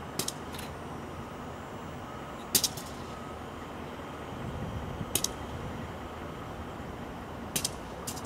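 Steady low rumble of an idling diesel locomotive at a distance, broken by short sharp clicks, mostly in pairs, about every two to three seconds.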